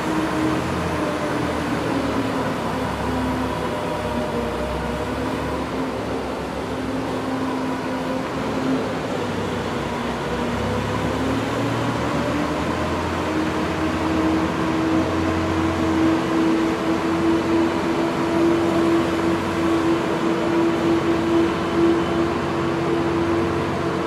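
Zamboni ice resurfacer running with a steady engine hum. Its engine note drops a little about two seconds in and climbs back up around eleven seconds in.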